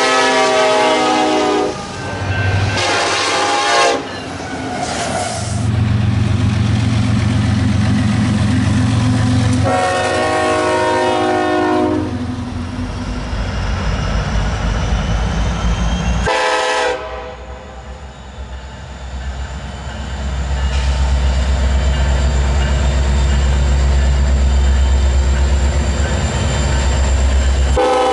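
Nathan K5 five-chime air horns on Union Pacific diesel locomotives sounding several blasts of different lengths, some held about two seconds and some short. Between the blasts there is the loud low rumble of the passing freight trains.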